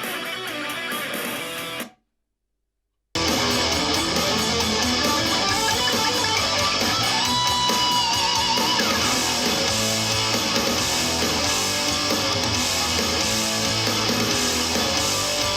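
Portable Bluetooth speaker playing guitar-driven rock music; the music cuts off about two seconds in and, after about a second of silence, starts again louder.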